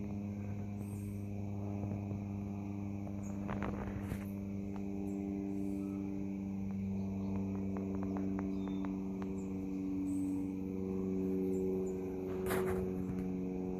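A steady low hum made of several held tones, with a few light clicks and rustles about a third of the way in and again near the end.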